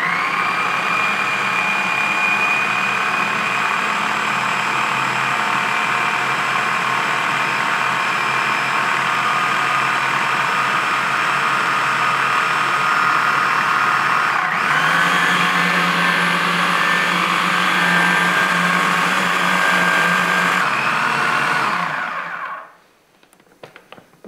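Blender running continuously, puréeing roasted vegetables into a smooth sauce. Its whine dips briefly about two-thirds of the way through and comes back slightly higher, then the motor stops shortly before the end, followed by a few small clicks.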